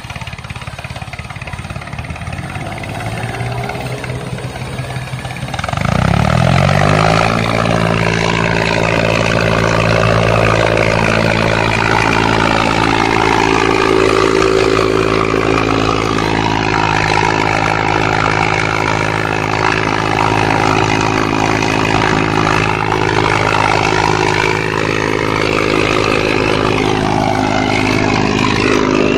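Motor of a homemade wired toy tractor starting about six seconds in. Its pitch sweeps quickly up, then it runs on with a steady drone while the tractor strains, stuck in gravel and mud.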